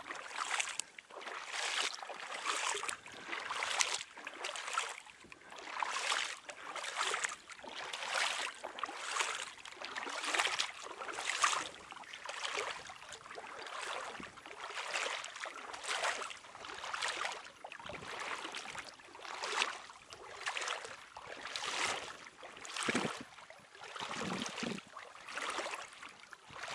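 Rubber boots wading through shallow water, a slosh and splash with every step at a steady walking pace, about three steps every two seconds.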